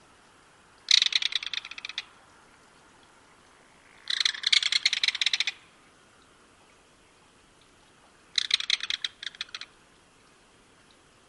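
Belted kingfisher giving its loud rattling call: three dry, rapid rattles of about a second to a second and a half each, a few seconds apart.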